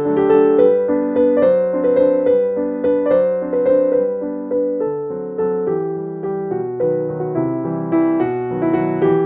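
Background piano music: a gentle melody of held notes over a steady repeated accompaniment.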